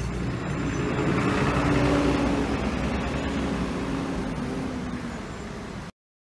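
A city bus's engine running in street traffic, swelling to its loudest about two seconds in and then easing off. The sound cuts out abruptly near the end.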